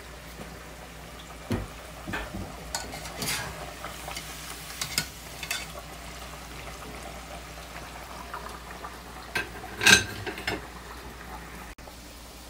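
Hot oil bubbling and sizzling as breaded chicken slices and potato fries deep-fry, with several short metal clinks and knocks from utensils against the pans. The loudest knock comes about ten seconds in.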